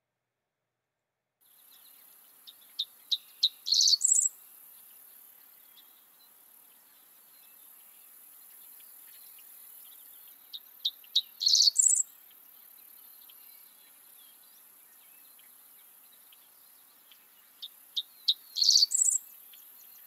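Dickcissel singing three times, about seven seconds apart: each song is a few short sharp notes followed by a quick run, the 'dick-dick-ciss-ciss-ciss' that gives the bird its name. A faint steady high hiss lies under the songs.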